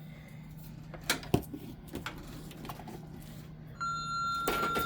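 Two sharp handling clicks, then a fire alarm control panel's electronic sounder giving one steady high beep about a second long near the end, the trouble warning for its disconnected battery.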